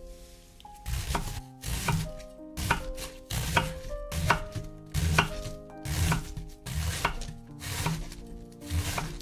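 Santoku knife slicing half a white cabbage into fine shreds on a wooden cutting board: about ten even strokes, roughly one a second, each a crisp crunch through the leaves ending in a knock of the blade on the board.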